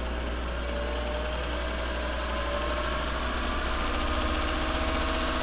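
Singer 301 sewing machine running on its foot control with the clutch engaged, so the whole mechanism turns. The motor's whine rises steadily in pitch as it speeds up over the first few seconds, then holds. This is a test run of the freshly reinstalled motor, and it sounds good.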